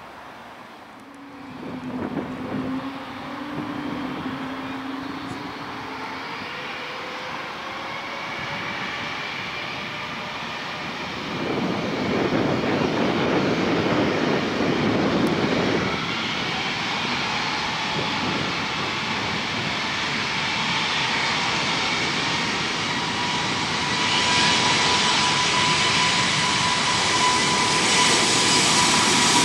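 Airbus A220-300's twin Pratt & Whitney PW1500G geared turbofans spooling up for a takeoff roll, growing steadily louder as the jet accelerates down the runway toward and past the listener. A whine rises in pitch through the second half, and a deeper rumble joins in about eleven seconds in.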